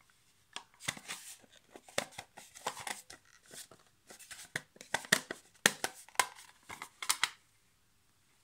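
Plastic casing halves of a Ubiquiti UniFi access point being handled and lined up: a run of irregular clicks, taps and short scrapes of plastic on plastic, stopping about a second before the end.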